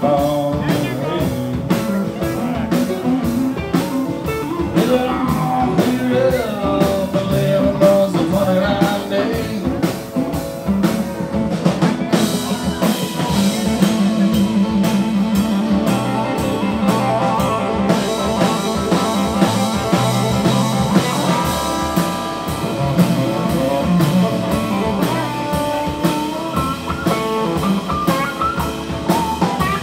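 Live blues-rock band playing: electric guitars over a steady drum beat, with a lead electric guitar line to the fore in the second half.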